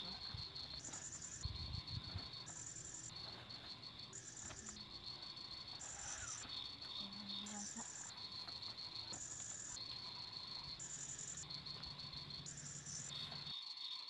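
Forest insects calling steadily in a high-pitched chorus that switches back and forth between two pitches about once a second. A few soft knocks and rustles come early on, from moving on a ground mat.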